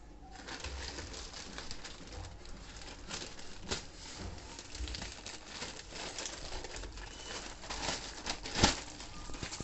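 Plastic courier mailer being cut open with scissors and pulled apart, the plastic crinkling and rustling with many small crackles. A sharper, louder crackle comes near the end.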